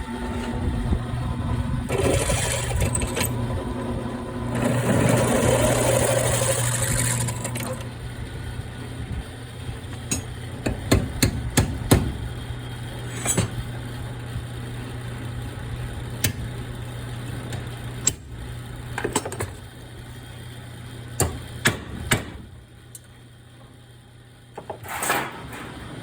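Metalworking on steel windmill parts: a machine motor hums steadily with two spells of harsh drilling noise in the first eight seconds, followed by scattered sharp metal knocks and taps. The hum stops a little before the end.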